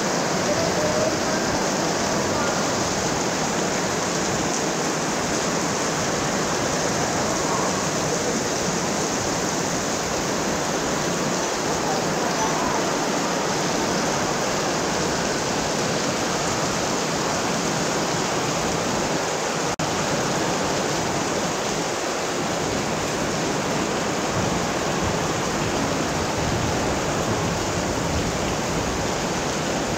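Heavy tropical rain pouring down in a steady, even rush.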